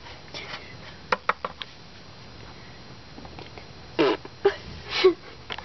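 Several light clicks and taps of plastic toy figures being handled on a dollhouse floor, about a second in, then a few short mouth noises from a person near the end.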